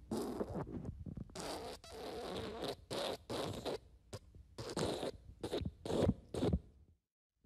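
Fart sound effect: a long run of many short, raspy bursts, the later ones shorter and closer together. It cuts off to silence near the end.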